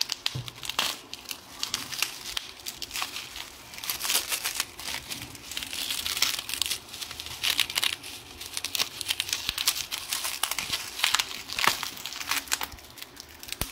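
Plastic bubble wrap crinkling and rustling in the hands as a circuit board is unwrapped, with dense, irregular crackles throughout.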